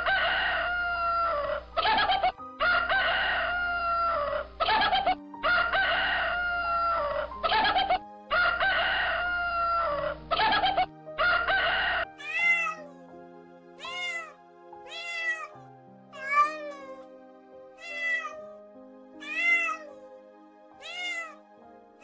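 A rooster crowing over and over, about four times in a row. After that a cat meows repeatedly, about every second and a half, over background music with long held notes.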